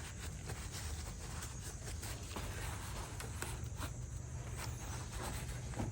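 Light rubbing, scraping and small clicks of hands working parts out of a car's front wheel spindle assembly, over a steady low hum.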